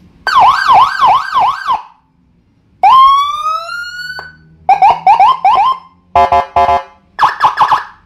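Custom 5-tone 'Landun' police-escort electronic siren, a 45-watt module driving a 15-watt horn speaker, switched through its tones by push buttons. First come bursts of rapid up-and-down warble, then a single long rising wail about three seconds in, more warbling, and short buzzy blasts near the end.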